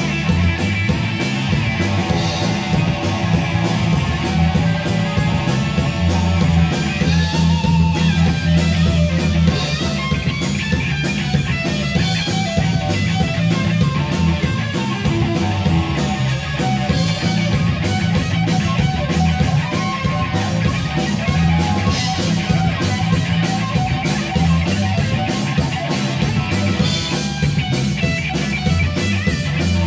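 A loud live rock band plays: electric guitar over electric bass and a drum kit, steady and without a break.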